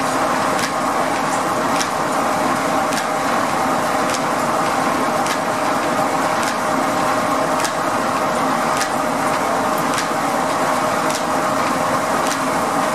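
Steam-powered sawmill's large circular saw blade spinning, with its belt and pulley drive running: a loud, steady mechanical hum with a light click repeating roughly once a second.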